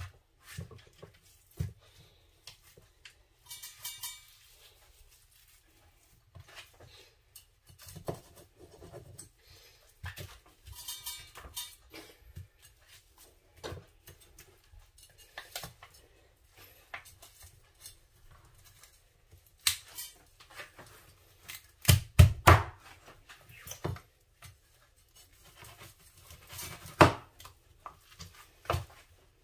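Irregular knocks, clinks and short scrapes of kitchen utensils and dishes being handled during fish preparation, with a cluster of louder knocks about two-thirds of the way through.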